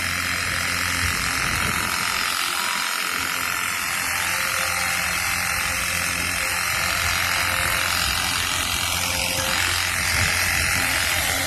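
SEESII cordless battery pressure washer running and spraying: a steady hiss from the water jet over the hum of its pump motor.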